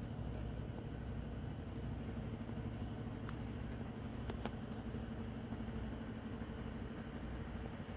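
Engine idling steadily, with a few light clicks about halfway through.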